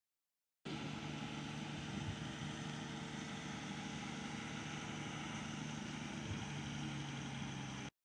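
Mobile crane's engine running steadily while it lifts a load, a low even hum under constant noise, starting abruptly just over half a second in.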